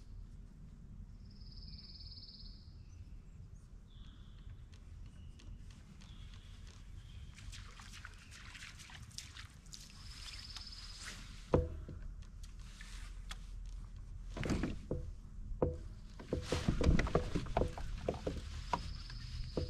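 Hollow knocks and thumps on a plastic fishing kayak, starting about halfway through and bunching up near the end, over a steady low rumble. A bird gives a short high call three times, about nine seconds apart.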